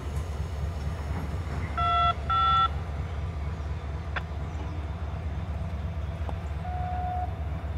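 Steady low rumble of a diesel railroad locomotive working in the yard, with two short loud electronic beeps about two seconds in, the second a little higher in pitch, and a faint brief tone near the end.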